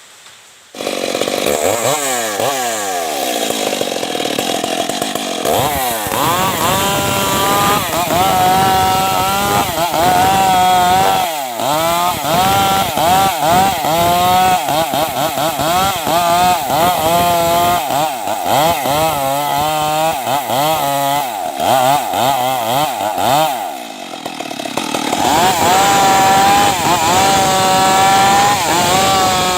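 Stihl chainsaw cutting into a tree, the engine held at high revs and its pitch repeatedly sagging and recovering as the chain bites into the wood. It comes in suddenly about a second in and eases off briefly near the end before pulling up to full speed again.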